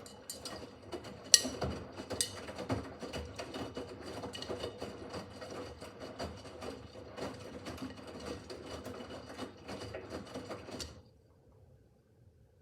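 Miele W5801 WPS front-loading washing machine turning its drum during a wash cycle, with a fast, dense clicking and rattling that stops abruptly about eleven seconds in as the drum pauses.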